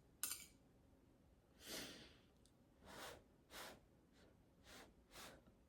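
Faint sounds of a person eating: a short click near the start, then soft breaths and mouth noises a few times as she chews a mouthful of stir fry.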